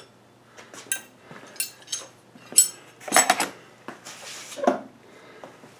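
Steel parts of a homemade screw puller clinking and clanking as they are handled and taken apart: a string of sharp metal-on-metal strikes with a bright ring, the loudest about three seconds in.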